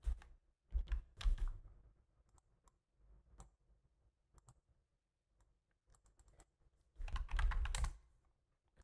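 Computer keyboard typing in two short flurries, about a second in and again near the end, with scattered single clicks between.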